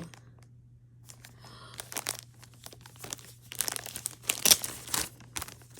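Packaging being handled and unwrapped by hand: irregular crinkling and rustling that starts about two seconds in and is loudest around the middle.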